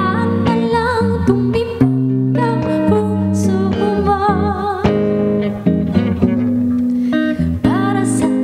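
A woman singing with vibrato into a microphone, accompanied by a clean semi-hollow electric guitar.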